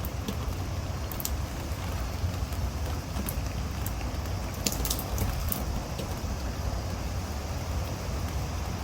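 Typhoon wind and rain: a steady rushing noise with a heavy low rumble of wind, and scattered sharp ticks of raindrops striking a surface, a small cluster of them about five seconds in.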